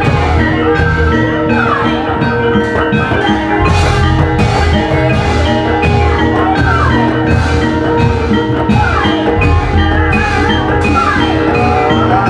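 Gamelan music accompanying an ebeg hobby-horse dance: repeated struck mallet-percussion notes over steady drumming, with a sliding melody line above them.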